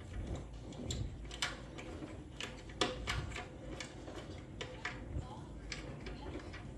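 Irregular small metallic clicks and ticks from an Allen key being turned in a seatpost clamp bolt, working the clamp up into the carbon seat tube.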